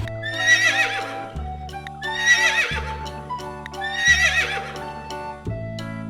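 A horse whinnying three times, each a wavering call about a second long. Background music with a repeating bass note plays underneath.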